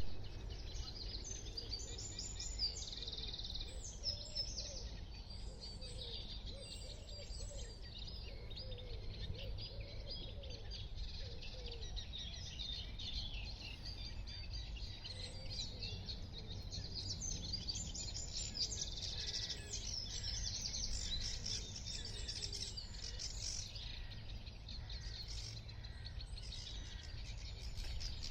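Songbirds singing in a reedbed: a dense, continuous chorus of overlapping high chirps and trills from several birds. A steady low rumble runs underneath.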